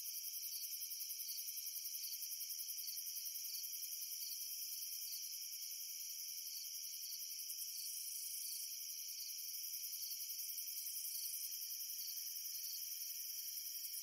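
Chorus of crickets chirping: a steady, high-pitched trill, with several insects calling at once at different pitches.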